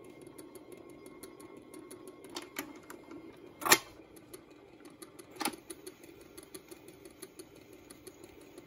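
The automatic 78 RPM record changer of an Admiral 6F11N radio-phonograph cycling: a steady mechanical whir with a run of light ticks. A loud clack comes a little before halfway, as a record drops onto the turntable, and a smaller clack follows about two seconds later.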